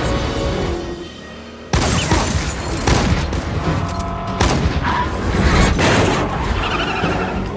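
Action-film sound mix: tense score music, then a sudden loud crash about two seconds in starts a run of sharp bangs and booms over the music, fitting gunfire and heavy impacts in a car chase.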